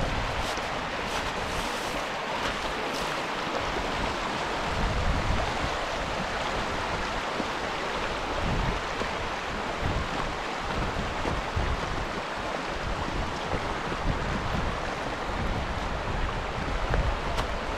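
Wind blowing across open fell land: a steady rushing noise, with gusts buffeting the microphone in uneven low rumbles.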